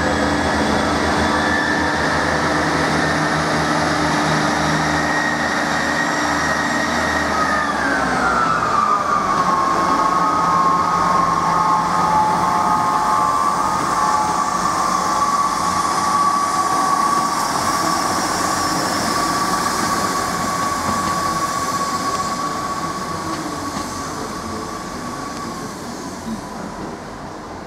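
Class 158 diesel multiple unit pulling away under power: a steady engine whine that drops in pitch about eight seconds in, then a long even tone that fades as the train draws off into the distance.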